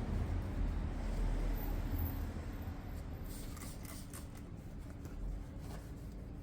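Rubbing and scrubbing of hand-cleaning a motorcycle, with a few light clicks in the second half.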